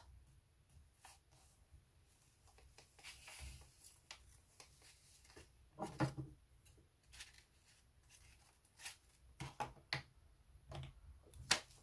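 Fingernails picking and scratching at a small roll of washi tape to lift its end, faint scattered clicks and scrapes, the loudest about halfway through.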